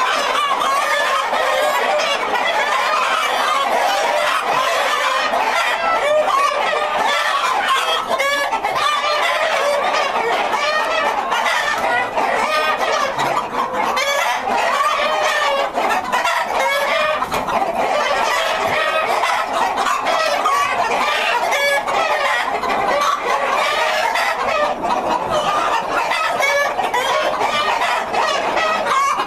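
A large flock of Partridge Cochin chickens clucking and calling continuously, many birds at once, with roosters crowing among them.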